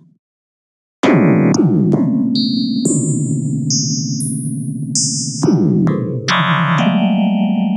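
Black-MIDI playback on a synthesized keyboard: after about a second of silence, huge clusters of many notes sound at once, shifting in dense blocks of chords every half-second or so.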